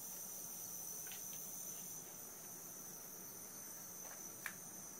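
Faint, steady high-pitched insect chorus, with a single sharp click about four and a half seconds in.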